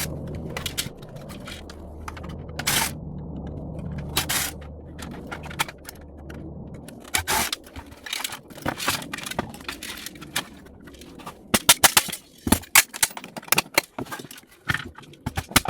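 Plastic and metal parts of a boombox being handled and pulled apart, with irregular clicks, knocks and scrapes that come thick and fast in the last few seconds. A steady low hum runs for about the first seven seconds, then stops.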